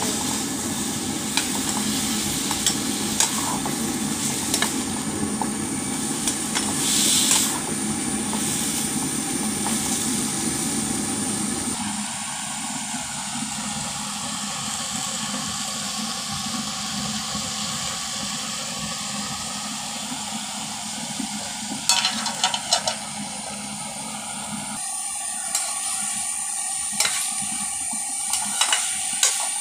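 Vegetables sizzling as they stir-fry in a metal pan, with a steady hiss. A metal spatula scrapes and knocks against the pan now and then, most often near the end.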